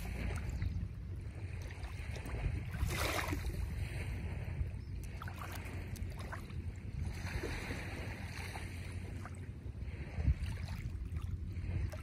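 Outdoor ambience at the water's edge: wind rumbling on the microphone over a soft wash of small waves lapping the shore. There is a brief burst of noise about three seconds in.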